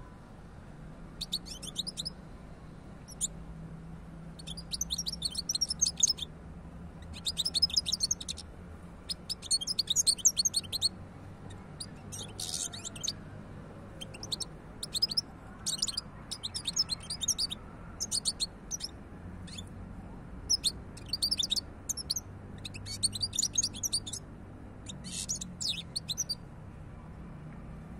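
European goldfinch singing from a cage: repeated short phrases of rapid, high twittering notes with brief pauses between them.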